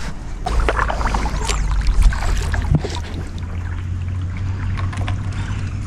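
Fishing kayak on the move: water swishing and light knocks on the hull, over a steady low rumble. The knocks and splashes are busiest in the first couple of seconds.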